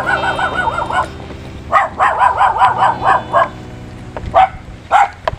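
A dog barking, two quick runs of rapid yips followed by a few single barks near the end.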